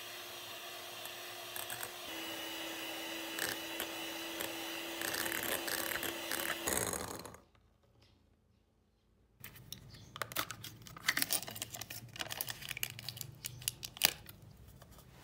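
Kenwood electric hand mixer running with its beaters whipping cream in a glass bowl; its hum drops slightly in pitch about two seconds in and it stops about seven seconds in. After a short pause come irregular clicks, taps and scraping from handling a plastic tub and bowl.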